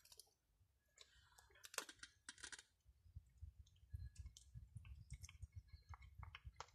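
Domestic cat chewing and crunching food off the ground: faint, irregular clicks.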